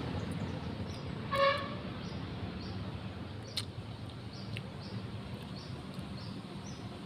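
A short, clear horn toot about a second and a half in, over a steady low hum, with faint high chirps repeating about every half second and a couple of sharp clicks.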